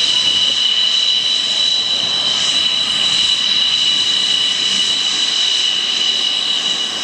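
Twin jet engines of a MiG-29 fighter whining steadily as it taxis along the runway, a high two-note whine over a hiss.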